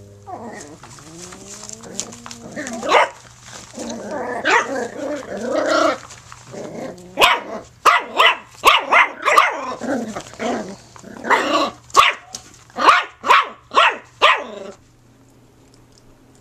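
Jack Russell terrier puppy whining and growling in rising and falling calls, then yapping in a quick string of about a dozen short, high barks that stop suddenly near the end.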